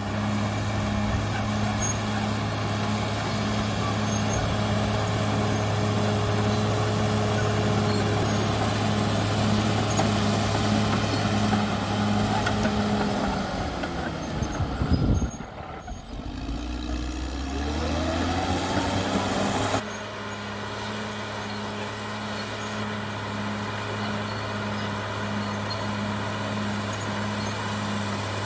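CAT D6R XL bulldozer's diesel engine running steadily. About halfway through, its pitch drops sharply and then climbs back up. Near two-thirds of the way in, the sound cuts abruptly to quieter, steady running.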